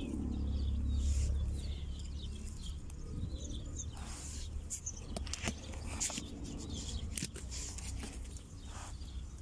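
Outdoor pond-side ambience: a steady low rumble, loudest in the first couple of seconds, with scattered clicks and rustles of handling close to the microphone and faint bird chirps.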